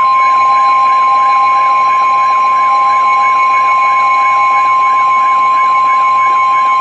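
NOAA Weather Radio warning alarm tone: a loud, steady single tone of about 1050 Hz, the signal that a warning broadcast follows. A fainter warbling tone sounds beneath it, wobbling about three times a second.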